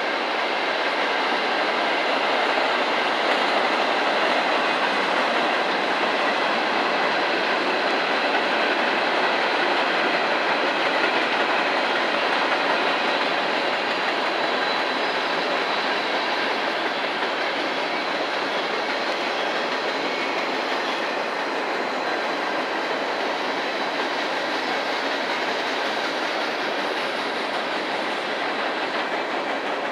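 Railroad cars of a passing train rolling by on the track, a steady continuous rumble with a faint high whine.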